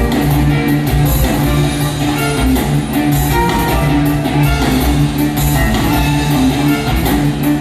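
Loud guitar-led music with a steady beat and a heavy bass line.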